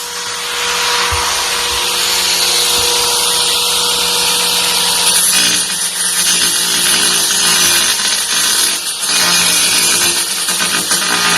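Titanium AG710 710 W angle grinder running under load, its disc working against the material: a dense hiss over a steady motor hum.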